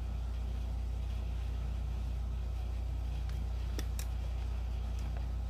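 A steady low hum of room background noise, with a few faint clicks about three to four seconds in.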